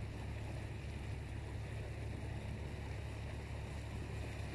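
Canal tour boat's motor running under way, a steady low hum with a haze of water and air noise over it.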